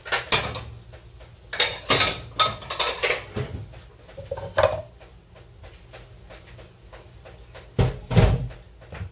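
Dishes and utensils clattering: a run of clicks and knocks over the first few seconds, a short ringing clink about halfway, then heavier thumps near the end as a ceramic plate is set down on the counter.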